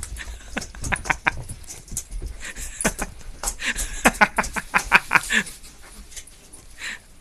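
Shiba Inu dog playing with a new toy: a busy run of quick clicks and knocks, thickest in the middle and dying down about six seconds in.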